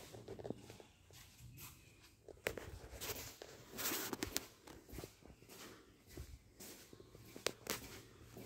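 Footsteps walking along a tiled corridor floor: irregular taps and scuffs, louder around four seconds in, with a sharp click near the end.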